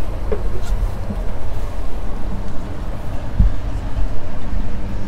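Steady low rumble and hum, with a couple of brief soft knocks.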